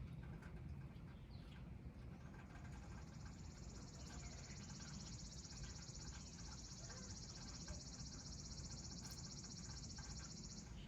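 A high, even insect trill starts about two seconds in, holds steady for some eight seconds, and cuts off abruptly near the end, over a faint low rumble.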